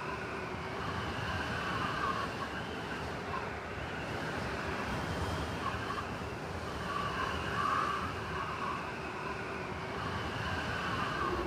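Steady rushing noise with faint wavering tones above it, a background sound bed that cuts off suddenly at the end.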